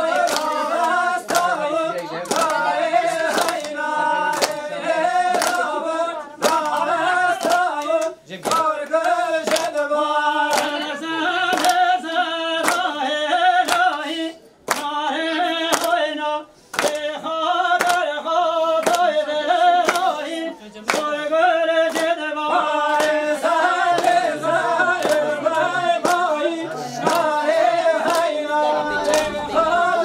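Group of voices singing a Kurdish wedding song together without instruments, over rhythmic handclaps about twice a second.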